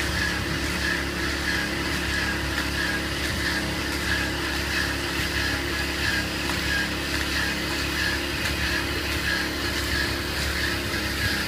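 Steady mechanical hum of a running motor, even and unchanging, with low droning tones.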